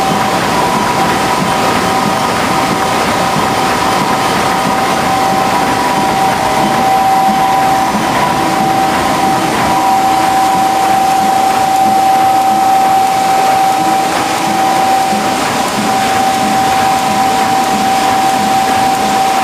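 Tymi Ustar-102 UV spot coating machine running: steady machine noise with a constant whine held throughout.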